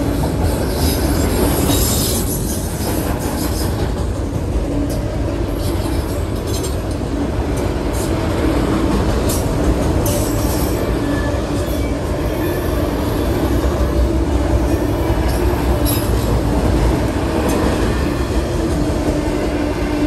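Freight train's multilevel autorack cars rolling past close by: a steady rumble of steel wheels on rail with scattered sharp clanks.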